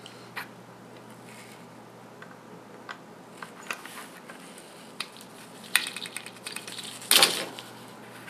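Metal needle-nose pliers and the plastic parts of a disassembled extruder being handled while jammed filament is worked out: scattered light clicks and small scrapes, with a louder, brief scraping clatter about seven seconds in.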